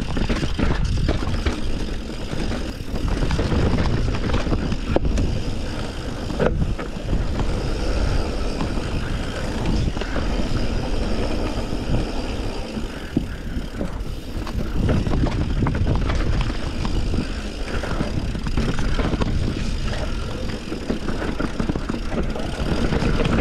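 Mountain bike ridden over a rocky trail: a continuous rushing noise of tyres and moving air, with sharp knocks about five and six and a half seconds in.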